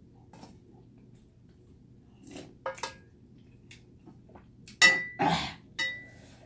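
A metal spoon scraping and clinking inside a thin aluminium pot. There are a few light taps a little over two seconds in, then three louder clinks near the end, two of them with a brief metallic ring.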